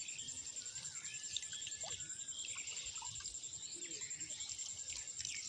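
Rural outdoor ambience: an insect's steady, very high-pitched pulsing trill, with many small birds chirping over it.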